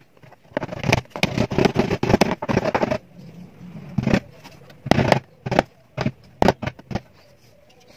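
Rubber mallet tapping small wooden wedges under a clamp caul that presses a newly glued bridge onto a nylon-string guitar's top. A quick run of taps comes first, followed by single knocks spaced about half a second apart.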